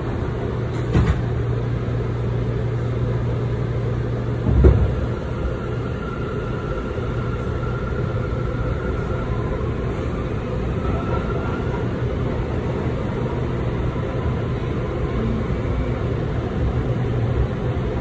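New York City subway train running, heard from inside the car: a steady rumble of wheels on the rails with a constant low motor hum. Two thumps, about a second in and about four and a half seconds in, the second the loudest.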